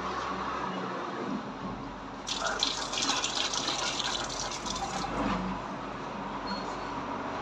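Water running steadily, as from a tap, with a harder, hissier rush between about two and five seconds in.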